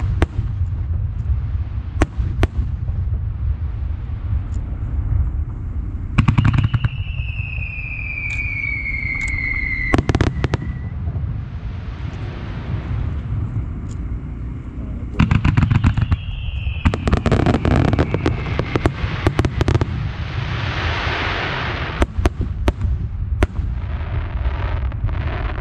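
Extra-large starmine fireworks barrage: a continuous run of booming shell bursts over a low rumble, with dense volleys of rapid cracks about a quarter and two-thirds of the way through. Two whistles fall in pitch, and a hiss of crackling stars comes past the middle.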